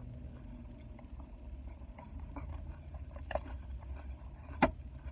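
Steady low rumble of a car cabin, with a few light clicks and one sharp click near the end.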